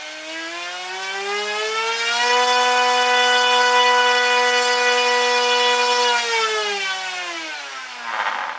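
A 3536 1500kV brushless outrunner motor spins a propeller on a thrust test rig. Its whine rises in pitch as the throttle opens, holds steady at top speed for about four seconds, then falls away as it spools down, with a short rush of air noise near the end.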